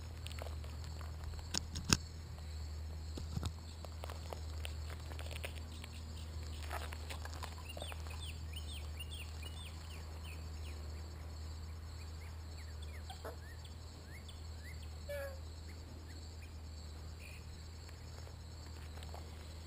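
Farmyard ambience over a steady low hum: a couple of sharp knocks about two seconds in, then scattered short chirping bird calls, thickest a few seconds later.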